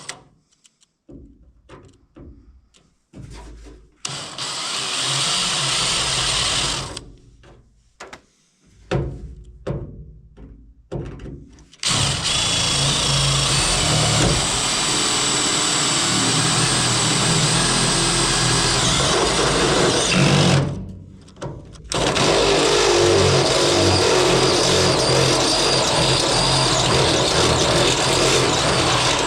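Electric drill boring a hole through the tailgate's sheet metal for a wiring grommet. There is a short run about four seconds in, then long steady runs from about twelve seconds, broken briefly once.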